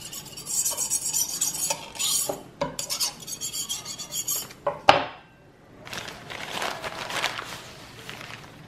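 Paper towel rubbed along a chef's knife blade, crinkling and scraping in several strokes as it wipes oiled jackfruit sap off the steel. A sharp clink about five seconds in.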